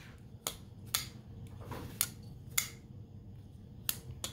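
Civivi flipper folding knife being flipped open and shut by hand: six sharp metallic clicks, coming in rough pairs, as the blade snaps out against its stop and drops back closed past the detent.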